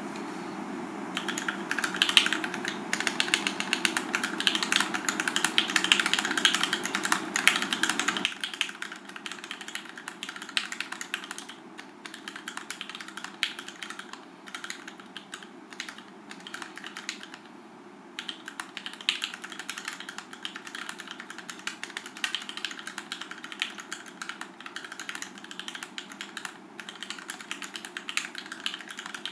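Typing on a mechanical keyboard with lubed and filmed Gateron Ink Black linear switches in a Tofu60 acrylic case: a fast, steady run of keystroke clacks. The typing is densest and loudest for the first several seconds, then lighter, with a brief pause a little past halfway.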